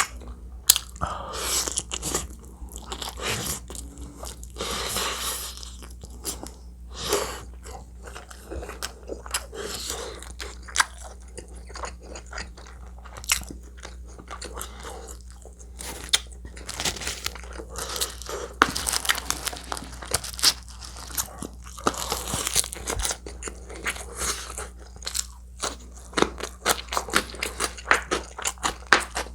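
Close-miked eating sounds: chewing and crunching with wet mouth clicks in irregular bursts, over a steady low hum.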